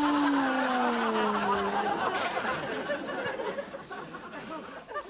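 A man's long, drawn-out cry of fright that slides down in pitch and stops about two seconds in, followed by a busy spell of laughter.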